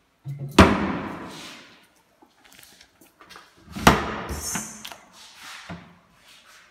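Kitchen cabinet doors knocking shut, two sharp bangs about three seconds apart, each ringing on briefly, then a lighter knock near the end.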